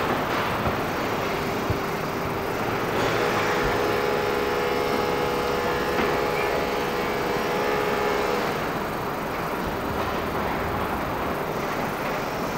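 Street traffic: a steady wash of road noise with a vehicle engine's drone, stronger from about three to eight and a half seconds in.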